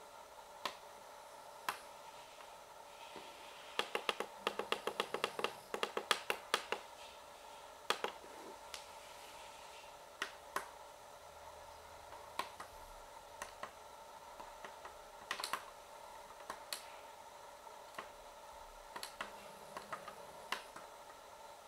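Plastic buttons on a Grundig CCD 5690 clock radio clicking as they are pressed: a quick run of a dozen or so presses about four seconds in, then single clicks spaced out through the rest.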